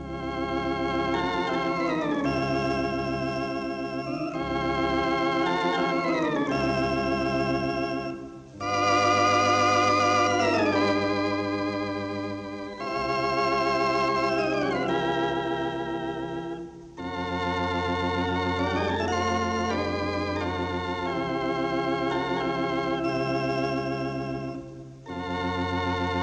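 Organ music: a slow Christmas piece played in sustained chords with a wavering vibrato over deep bass notes, in phrases with brief breaths between them. The piece begins right after a short silence at the start.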